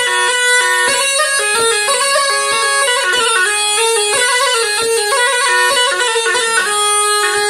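Tulum, the Black Sea bagpipe, playing a quick instrumental melody of rapidly changing notes, with no singing.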